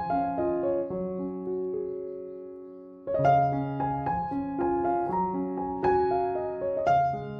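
Background piano music: a gentle melody of struck notes that dies away about two seconds in and starts up again about three seconds in.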